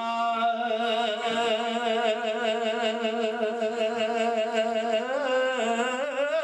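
A man singing one long held note with a steady vibrato in a devotional recitation; near the end his voice moves up and down in pitch.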